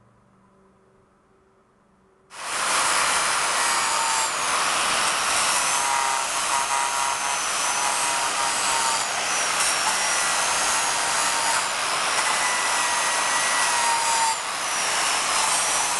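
Angle grinder with a sanding disc sanding carved wood: a loud, steady grinding rush with a high whine that wavers in pitch as the disc works the wood. It comes in abruptly about two seconds in, after near silence.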